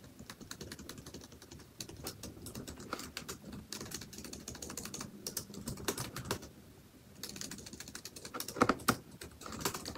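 Typing on a laptop keyboard: quick runs of keystrokes with a brief pause about two-thirds of the way through and a few harder strokes near the end.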